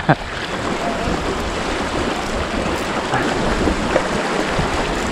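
Sea water washing over shoreline rocks, a steady rushing.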